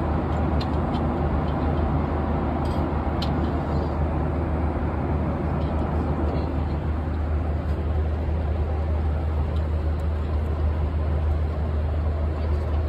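Steady cabin roar of a Boeing 737-800 airliner in cruise, engine and airflow noise with a strong low drone. A couple of faint clicks about three seconds in.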